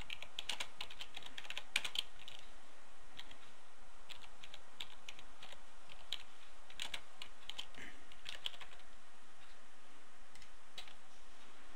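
Typing on a computer keyboard: quick, irregular runs of keystrokes that thin out to a few scattered clicks after about nine seconds.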